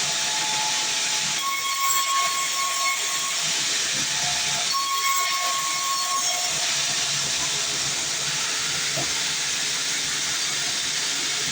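Sawmill bandsaw blade cutting through a dense log: a loud, steady hiss, with a high whining tone that comes in twice for a second or two.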